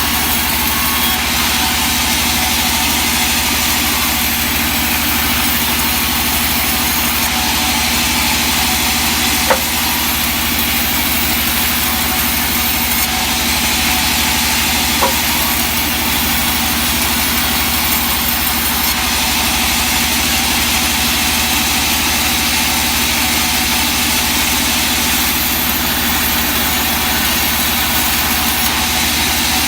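Sawmill machinery running steadily, its motor humming under a hiss of noise, with two short sharp ticks about ten and fifteen seconds in.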